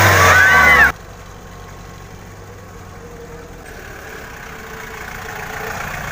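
Daihatsu Taft 4x4 engine running on a muddy track, growing steadily louder as it comes closer. The first second is a much louder clip of an engine with voices calling out, cut off suddenly.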